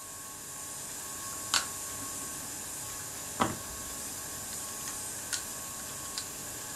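A few sharp little metallic clicks and taps from small parts and tweezers being handled on a Kodak Retina Reflex S camera body: two louder clicks, one early and one past the middle, then several fainter ones, over a steady faint hiss.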